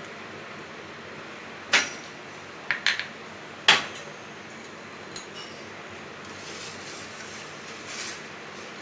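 Kitchen utensils knocking and clinking against a saucepan as the powdered dry ginger and pepper are tipped in: four sharp knocks between about two and four seconds in, the last the loudest, then a faint tap.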